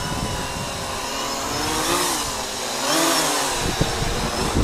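Bayangtoys X16 quadcopter's brushless motors and propellers whining in flight, the pitch swooping up and down as the throttle changes, about 2 and 3 seconds in.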